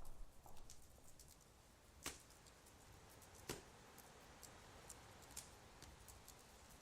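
Quiet room ambience with a faint steady hiss, broken by two sharp clicks about two and three and a half seconds in and a few fainter ticks.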